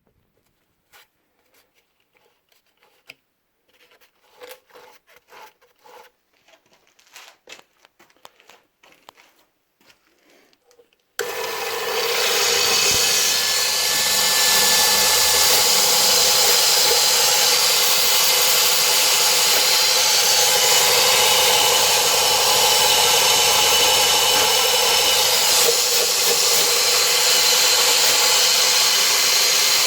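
Faint scattered knocks and rustles, then about 11 seconds in a small belt sander switches on and runs steadily and loudly to the end, the abrasive belt rasping.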